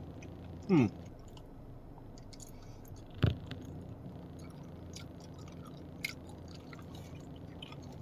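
A person chewing a soft grape-shaped gummy candy. Just under a second in there is a short, loud rising hum, and about three seconds in a single sharp knock.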